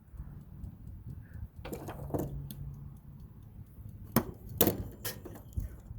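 Metal parts of a toaster-oven timer and thermostat assembly being pried at and handled, giving a few sharp clicks and clanks, the loudest a little past the middle.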